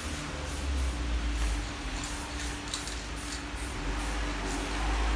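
Aerosol spray can hissing as a car taillight lens is sprayed black, with a steady low hum underneath.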